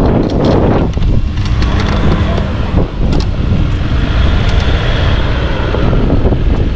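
Heavy wind buffeting the microphone: a loud, steady low rumble.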